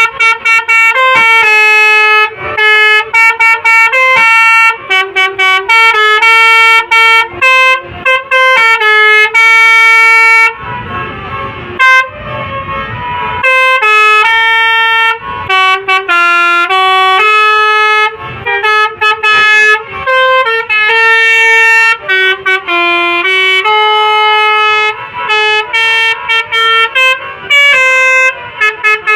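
Basuri telolet bus horn, a multi-tone musical horn, playing a dangdut koplo melody as a rhythmic run of short notes. About ten seconds in, the notes stop for some three seconds and a rushing noise takes their place.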